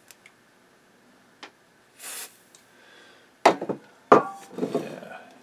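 A short hiss of freeze spray from an aerosol can through its extension straw, about two seconds in, used to chill a suspect transistor on the amplifier board. Then two sharp knocks and some lighter clatter as the can is handled and set down on the bench.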